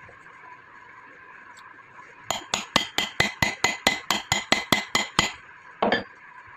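A hammer striking metal about fourteen times in quick succession, roughly four blows a second, each with a short metallic ring, then one more blow a moment later. A steady high hum runs underneath.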